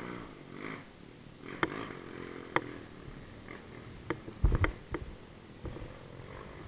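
An engine running at low revs, its pitch wavering, with scattered sharp knocks and a cluster of heavy low thumps about four and a half seconds in.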